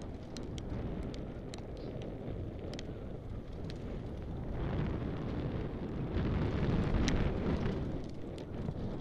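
Wind buffeting a helmet-mounted camera's microphone during a fast mountain-bike descent, with the tyres rumbling over a dirt trail and scattered sharp clicks and rattles from the bike. It grows louder about six seconds in.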